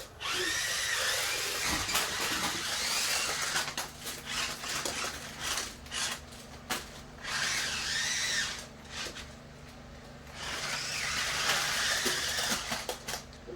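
Remote-control stunt car's small electric motors whirring in three bursts, each rising and falling in pitch as the car is driven and spun.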